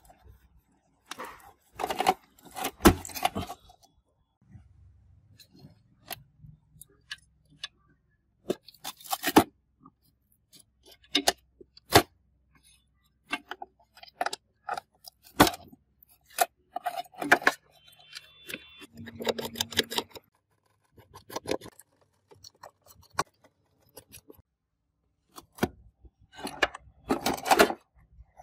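Hands handling a motherboard and its connectors inside a dirt-caked steel computer case: irregular sharp clicks, knocks and short scraping rattles of metal and plastic parts, with pauses between them.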